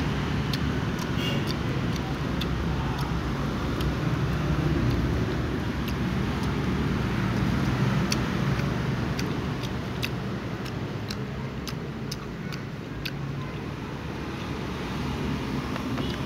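A cat crunching dry kibble: sharp, irregular clicks of chewing over a steady low rumble.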